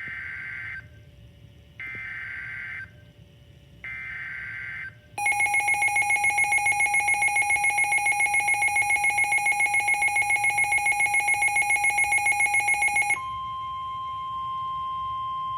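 A NOAA Weather Radio emergency alert opening: three short buzzy EAS/SAME data header bursts, then a loud rapidly pulsing alarm tone from the weather radio receiver for about eight seconds, then a steadier single-pitch attention tone, the NWR 1050 Hz warning tone, signalling that a warning message follows.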